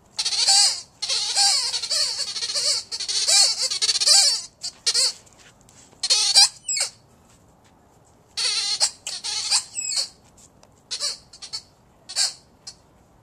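Blue rubber squeaky ball squeaking over and over as a dog chomps on it: quick runs of high, wavering squeaks, coming less often after about the first four seconds.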